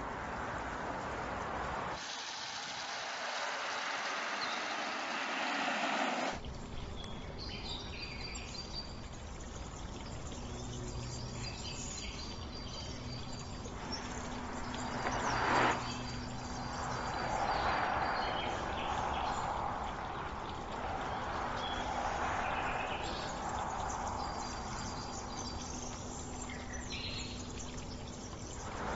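Steady road and tyre noise of a Volkswagen ID.4 GTX electric SUV driving, with no engine sound, mixed with outdoor ambience and a few faint bird chirps. The sound changes abruptly about two seconds in and again about six seconds in, and a brief louder whoosh comes about halfway through.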